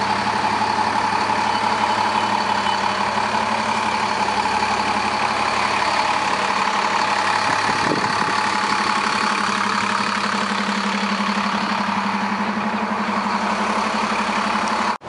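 City transit bus engine idling: a steady engine hum with a steady high whine over it.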